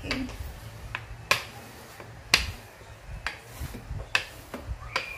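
Rolling pin worked back and forth over bread dough on a silicone baking mat, giving a series of sharp clicks and knocks, the two loudest about a second apart.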